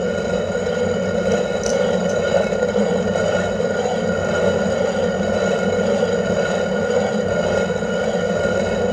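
Hand-turned stone quern (chakki) grinding dal, a steady unbroken grinding of stone on stone.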